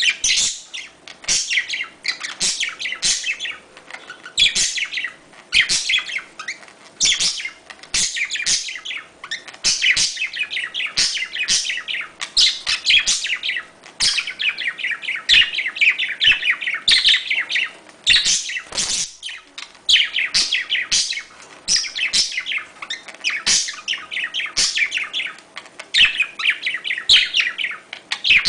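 Budgerigars chattering and warbling in continuous bursts of fast chirps and clicks: the excited budgie mating chatter played to get a pair to breed.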